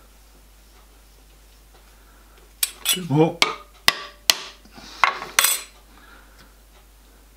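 A small hammer tapping a steel workpiece clamped in a milling-machine vise: about eight sharp taps over three seconds, starting about two and a half seconds in. The taps nudge the part so that its scribed line lines up with the mill's axis.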